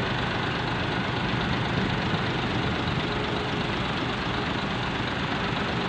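Large tour bus's diesel engine idling steadily while parked.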